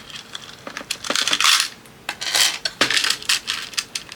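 Small handmade charms and zipper pulls clinking and rattling against each other as they are handled, in a quick run of sharp clicks with a denser jingle about a second in.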